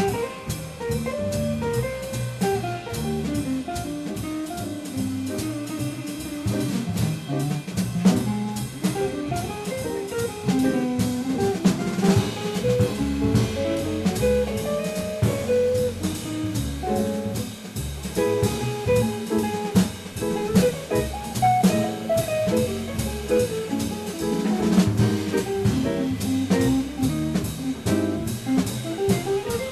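Live jazz quartet of two archtop guitars, upright bass and drum kit playing, with melodic guitar lines moving over the bass and the drummer's cymbals and drums.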